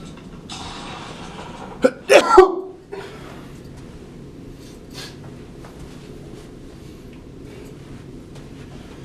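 A man sneezes once, loudly, about two seconds in, after a drawn-in breath.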